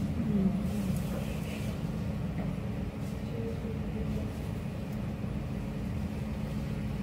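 Steady low indoor hum and rumble with a constant tone, like ventilation running, and faint distant voices murmuring now and then.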